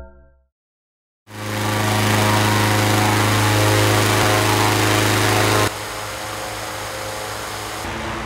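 Small petrol engine of a balloon inflator fan running steadily, blowing cold air into a hot air balloon envelope. It starts abruptly about a second in and drops to a quieter, steady level a little past halfway.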